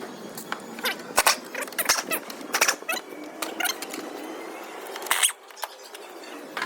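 A run of irregular sharp clicks and knocks of hand tools against metal engine parts, with the loudest knock about a second in.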